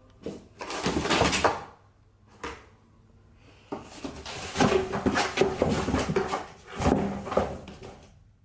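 Rustling, knocking handling noises in two main stretches, a short one near the start and a longer one from about four seconds in, with a brief burst between them.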